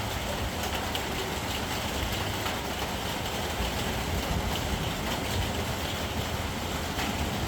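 Steady rain noise with a low rumble underneath and faint scattered ticks of drops.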